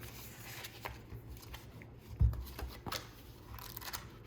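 Photo cards and album inclusions being handled and sorted: light clicks and rustling, with one thump about two seconds in and a brief rustle near the end.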